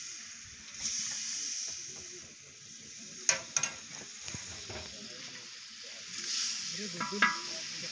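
A long wooden paddle stirring broth in a metal pot over a wood fire, against a steady hiss, with a few sharp knocks about three seconds in and again near the end.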